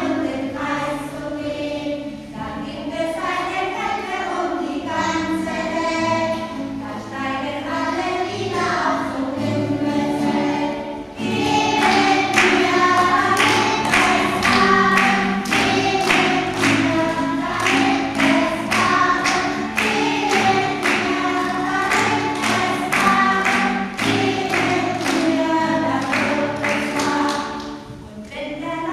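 A group of voices singing a song together to a strummed acoustic guitar. About eleven seconds in, the singing grows louder and the strumming becomes steady and even.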